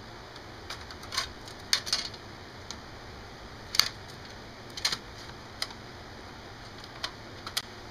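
Irregular sharp clicks and clacks of a SATA laptop hard drive and its external enclosure being handled and fitted together, over a faint steady hum.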